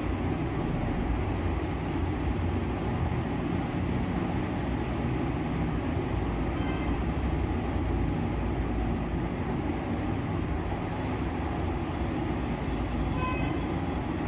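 Steady rumbling background noise, heaviest in the low range, with no break. A few faint, brief high tinkles come about seven seconds in and again near the end.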